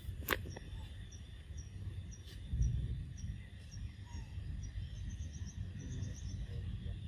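Forest ambience: a steady insect drone and a short high chirp repeating about twice a second, which breaks into a quick run of chirps near the end. Under it runs a low rumble, loudest about two and a half seconds in, and there is one sharp click just after the start.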